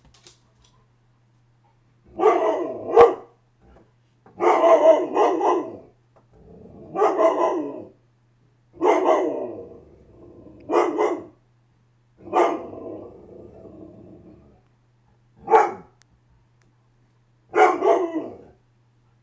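Dog barking in agitated, repeated bouts, about eight of them a second or so apart, one drawn out longer into a growl near the middle.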